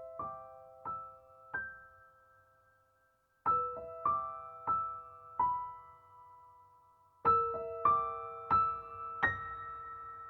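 Background music: a slow, gentle piano melody of single notes and chords, each struck and left to ring out, in three short phrases with pauses between them.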